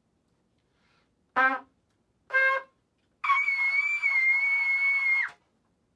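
Stagg C trumpet played up its range: two short notes climbing, then a long high note held about two seconds, the double high C.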